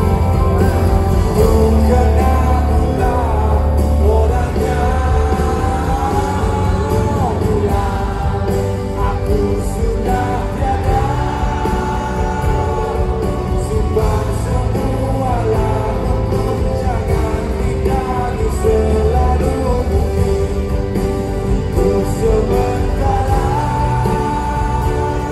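Live band music with singing, heard from among the audience in a large arena: a sung melody over acoustic guitar and heavy bass.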